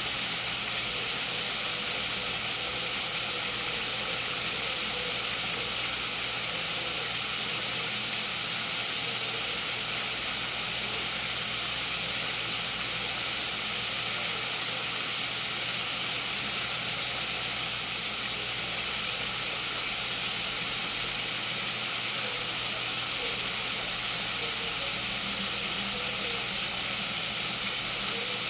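Breaded chicken wings shallow-frying in hot oil in a cast-iron pan: a steady, even sizzle.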